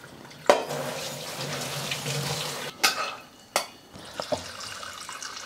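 Tap water running onto soaked kidney beans in a stainless-steel colander in a steel sink, starting with a click about half a second in and stopping after about two seconds. A few sharp clanks of steel kitchenware being handled follow.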